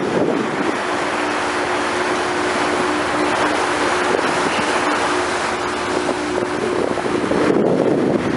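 Water rushing past the bow of a longliner under way, with wind buffeting the microphone over a faint steady engine hum; a heavier gust of wind near the end.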